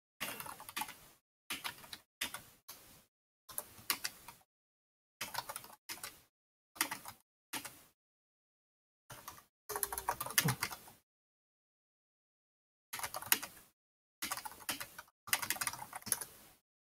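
Typing on a computer keyboard: runs of rapid keystroke clicks in about a dozen short bursts with brief pauses between them, and a longer pause a little past the middle.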